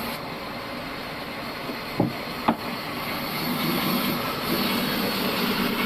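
Old band sawmill machinery running steadily. Two sharp knocks come about two seconds in, and a steady hum builds from about three and a half seconds.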